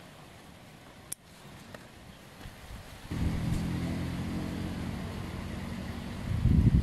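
A sharp click about a second in, then an engine starts up suddenly about three seconds in and runs steadily, with louder uneven bursts near the end.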